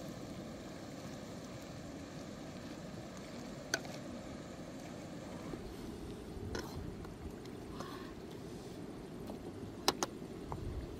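Wooden spoon knocking against a metal wok as octopus is stirred in it: a few sharp knocks, the loudest a quick double knock near the end, over a steady low rumble.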